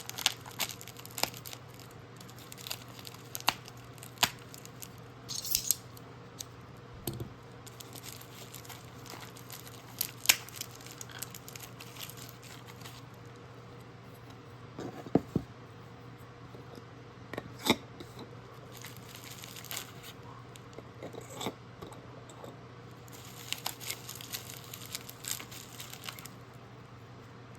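A package being opened and unwrapped by hand: packaging tearing and crinkling, with scattered sharp clicks and taps of small items being handled.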